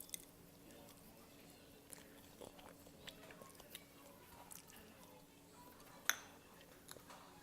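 A person chewing ramen noodles, with soft wet mouth clicks. A sharper click comes about six seconds in.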